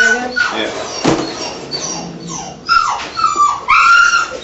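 Angry house cat yowling and growling: a string of wavering, drawn-out wails that rise and fall in pitch, the longest and loudest near the end. A single sharp knock sounds about a second in.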